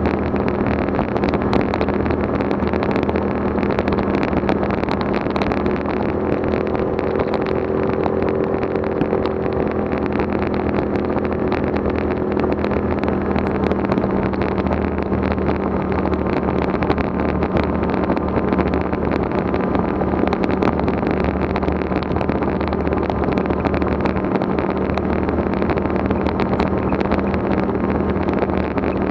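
An off-road vehicle's engine running steadily at cruising speed, with tyres rolling over a gravel road.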